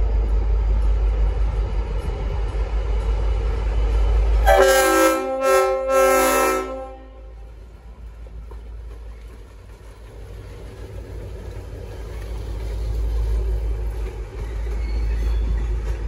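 Leslie RS5T five-chime air horn on a V/Line N class diesel locomotive sounding a chord in a few quick blasts about four and a half seconds in, lasting about two seconds. A low rumble runs underneath, dropping after the horn and building again near the end as the locomotive passes.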